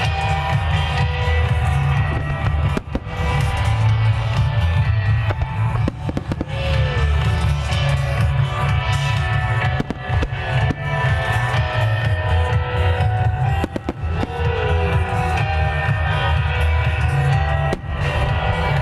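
Loud music with drums and guitar played for a synchronized fireworks show, with firework bursts cracking through it every few seconds.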